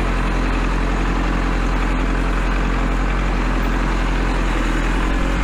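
Kubota L4701 tractor's diesel engine running steadily as it drives through snow on chained tires.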